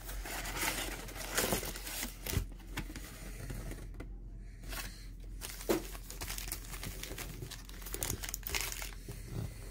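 Panini Chronicles football Mega Box being torn open by hand and the wrapped card packs inside handled: irregular cardboard tearing and wrapper crinkling with a few sharp clicks, and a brief lull about four seconds in.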